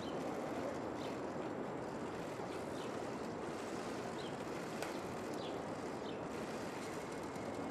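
Steady outdoor background noise, with a few faint high clicks scattered through it.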